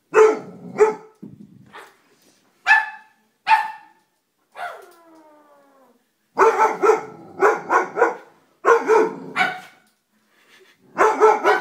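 Doberman pinscher barking at a stuffed toy dog, first in single barks, then in quick runs of several barks. About five seconds in there is one drawn-out cry that falls in pitch.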